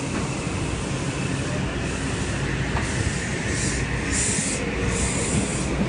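Metro-North M8 electric multiple-unit train rolling past along the platform with a steady rumble of wheels and motors. Several short bursts of high hissing come from about two seconds in until near the end.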